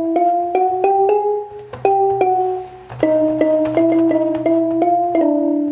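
Sampled marimba notes from the Bongo Cat web toy, played on the computer keyboard's letter keys: a quick melody of single struck notes, with a short pause about two and a half seconds in.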